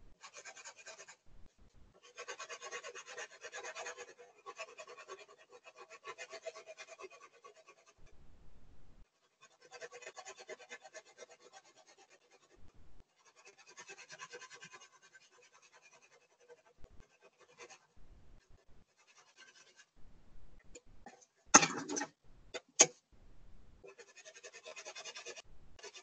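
Marker tip drawing on a plastic milk jug, squeaking and scratching in short strokes with pauses between. Near the end, a louder rustle and two sharp clicks.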